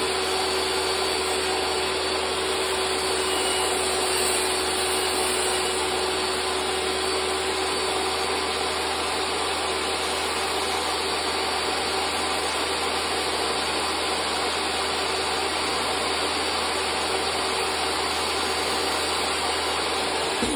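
Table saw running steadily with a steady motor whine, its blade raised full height to mill the back of a baseboard's coped end as the board is slid back and forth across it.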